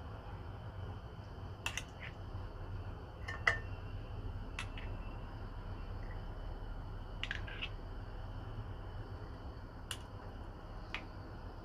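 A spoon clicking lightly against scallop shells and a garlic jar as minced garlic is spooned onto the scallops, about seven small clicks spread out over a low steady hum.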